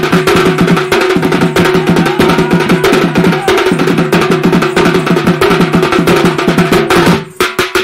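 Folk dance music led by a double-headed barrel drum (dhol), beaten fast with a hand and a stick, over a steady held note. It breaks off about seven seconds in, leaving a few final drum strokes.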